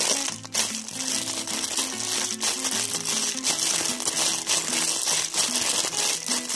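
Background music with a simple melody running throughout, with light crinkling noise mixed in.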